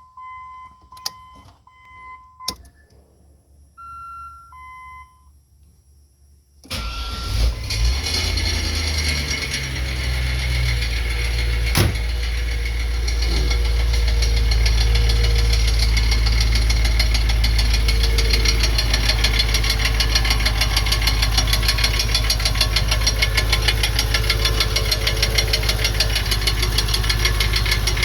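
Car warning chimes beep several times, then the engine starts about seven seconds in and settles into a steady, loud idle that the owner calls terrible sounds. A sharp click comes a few seconds after it starts.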